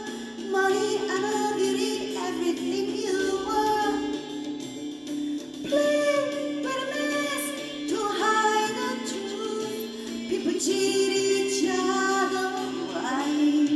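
A woman singing a slow ballad over instrumental accompaniment, in an amateur cover.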